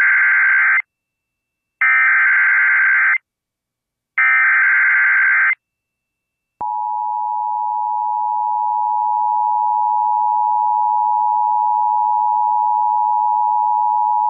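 Emergency Alert System broadcast tones over FM radio. First comes the end of one burst and then two more bursts of the warbling SAME digital header, each about a second and a half long with short gaps between. About a second after the last burst, the two-tone EAS attention signal starts and holds steady as one unbroken dual-pitched tone.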